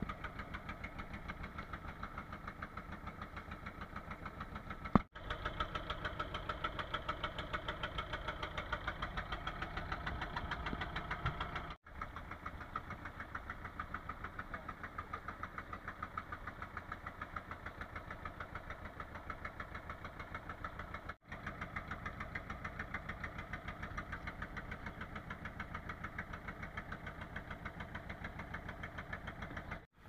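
Fishing boat's engine running steadily under way, a fast, even chugging, with three very brief dropouts.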